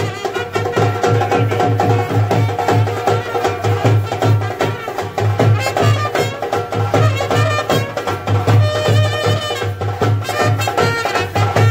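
Brass band playing a folk tune: a steady drum beat with a wavering melody on top.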